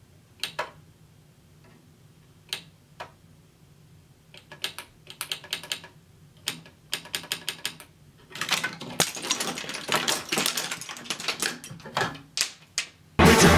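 Plastic building bricks clicking and clattering: a few scattered sharp clicks, then dense rapid clicking about eight seconds in as bricks are handled and pressed on.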